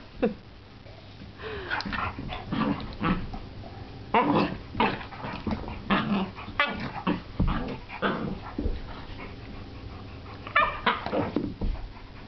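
An Airedale terrier and a Picardy Shepherd puppy play-fighting, with short dog play vocalizations coming in irregular bursts, some sliding in pitch.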